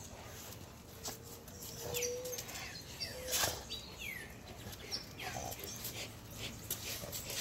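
A Siberian husky and a big black dog scuffling and wrestling at play, with brief high squeaks and whines mixed into the movement noise.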